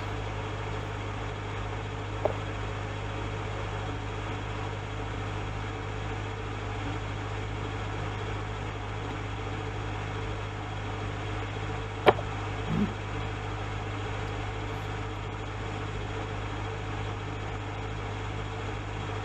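Metal lathe running steadily under a light finishing cut on a muzzle-brake blank with a carbide-insert turning tool, a constant low machine hum. A single sharp click about twelve seconds in.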